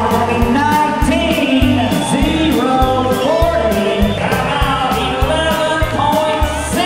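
A song with a singer over a steady drum beat and bass.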